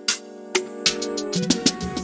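Background music with a steady electronic drum beat under sustained instrument tones.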